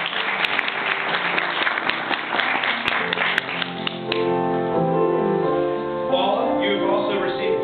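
Congregation applauding. About four seconds in, applause gives way to music with long held keyboard chords.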